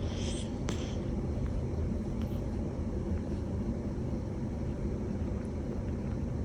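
Sleeping cat snoring, recorded close up: a steady low rumble, with a brief higher hiss and a click in the first second.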